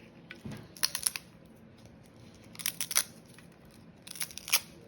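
Bay leaves being broken by hand into small pieces: crisp snapping and crackling in three short bursts.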